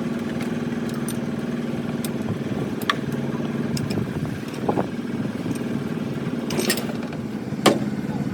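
An engine running steadily with a low hum, with a few sharp metallic clinks and knocks scattered through it.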